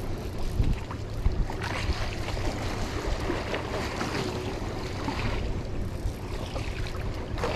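Wind buffeting the microphone and sea water washing around a small outrigger fishing boat, over a low steady hum, with a couple of light knocks about a second in.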